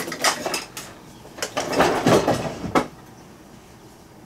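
Knocks, clicks and scrapes of kitchen items being handled, in two short clusters; the clatter stops a little under three seconds in.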